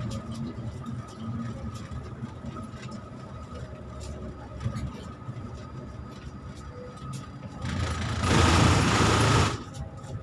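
A bus engine runs steadily as the bus moves, heard from inside the cabin as a low rumble. About eight seconds in, a loud hiss lasts under two seconds and then stops abruptly.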